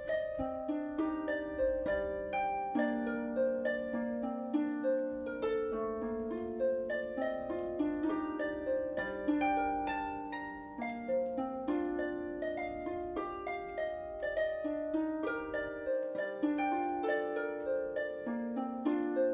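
Background music: a steady flow of plucked, harp-like notes, several sounding together as a gentle melody.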